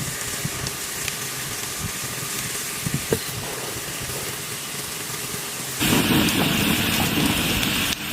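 Bamboo heating over a wood fire, hissing and sizzling steadily as sap boils out, with a few sharp crackles about three seconds in. Near the end a louder rushing noise cuts in abruptly.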